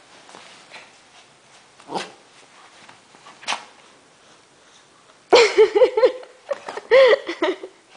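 Wet Maltese dog drying itself on the bedding: a few short sniffs, then about five seconds in and again near the end, runs of quick, high, wavering play-vocalising, the grumbling yips that dogs make while rubbing their faces into a towel.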